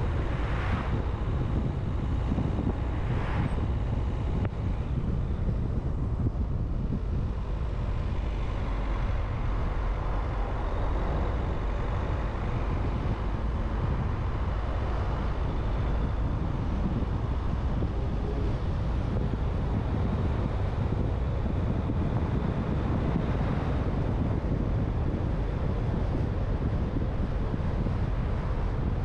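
Steady road and wind noise of a car on the move, strongest in the low end. Two brief swells of hiss come within the first few seconds.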